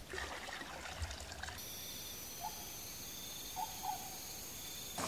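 Faint water pouring and trickling from a metal pot into a bucket at a forest pond. About a second and a half in it gives way to night ambience: steady high-pitched insect trilling with a few short calls.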